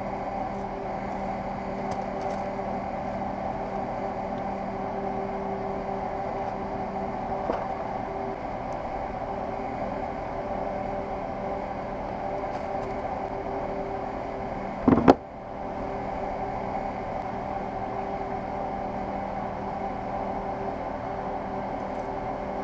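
Steady mechanical hum from a running machine, holding several steady tones, with one short loud knock about fifteen seconds in.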